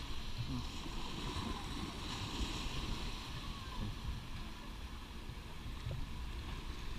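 Steady outdoor background noise with a low rumble and faint distant voices.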